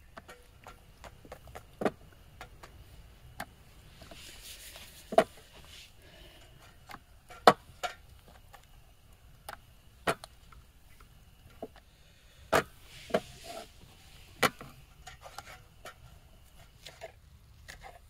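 Knife chopping spring onions: irregular sharp knocks, a few of them louder than the rest.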